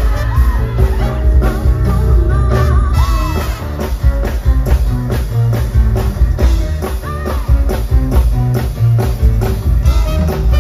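Live band playing a pop song: a woman singing over a drum kit with a steady beat, electric guitars and a horn section of trumpet and saxophone.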